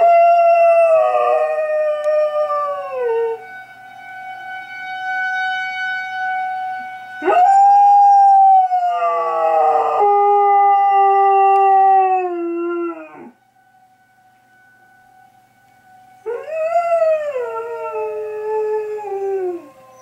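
A collie–Australian shepherd mix dog howling at an air raid siren: three long howls, each rising and then sliding down in pitch, over the siren's steady wail, which begins to drop in pitch near the end.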